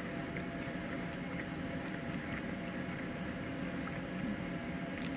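A person chewing a mouthful of baked chicken, with faint, scattered mouth clicks over a steady low background hum.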